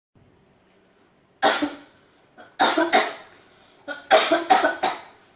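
A person coughing hard in fits, mouth uncovered: one cough, then two close together, then a run of about four.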